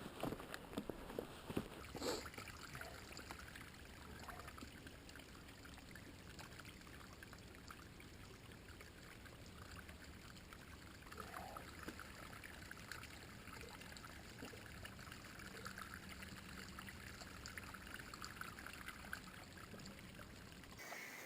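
Small stream flowing, a faint steady rush of water, with a few clicks and knocks in the first couple of seconds.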